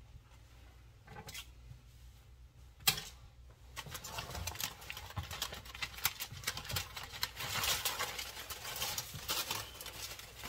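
Aluminium foil crinkling and rustling as a foil cover is handled and pulled off a disposable aluminium baking pan, in dense irregular crackles from about four seconds in, after a single sharp knock about three seconds in.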